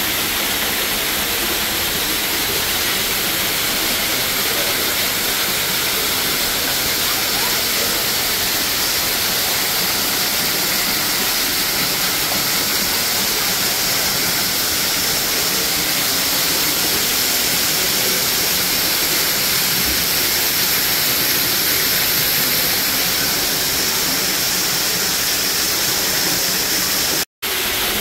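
Waterfall in a steady, dense rush of falling and splashing water. It cuts out for a split second near the end, then resumes.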